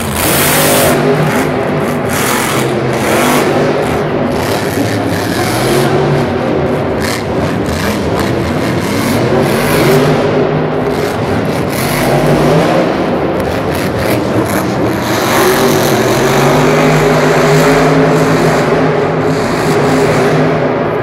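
Grave Digger monster truck's supercharged V8 engine revving hard and continuously, its pitch rising and falling over and over as the throttle is worked.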